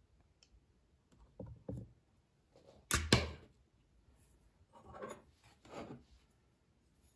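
Plastic lid of a microwave egg poacher being handled and lifted off: a couple of soft knocks, then a sharp double clack about three seconds in, the loudest sound, followed by two softer handling noises.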